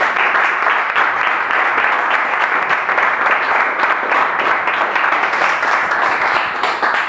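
Audience applauding, a loud, steady clapping throughout.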